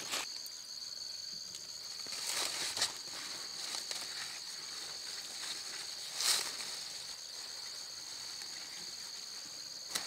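Insects chirring steadily in two high-pitched bands throughout. Brief rustling noises come about two and a half seconds in and again about six seconds in.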